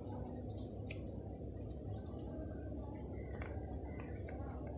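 Faint handling noise as a smartphone is lifted from its box and slid out of its plastic-and-paper protective wrapper: a single click about a second in, then small rustles and scrapes, over a steady low hum.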